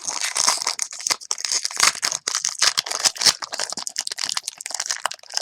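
Foil card-pack wrappers crinkling and tearing, with the cards being shuffled and handled: a dense run of quick crackles and snaps.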